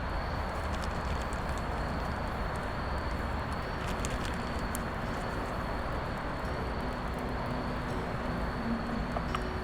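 Wood campfire burning: a steady hiss and rustle with scattered sharp crackles and pops.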